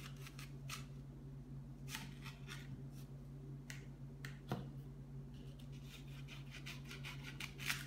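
A small kitchen knife cutting into a green apple: scattered crisp clicks and crunches of the blade through the flesh, with a sharper click about halfway through, over a steady low hum.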